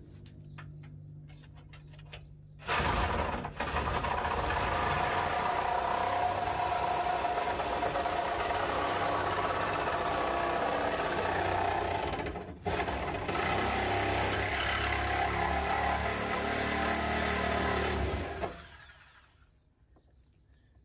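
Reciprocating saw cutting through the car's rusted sheet metal, starting about three seconds in with a brief stop partway and cutting off near the end.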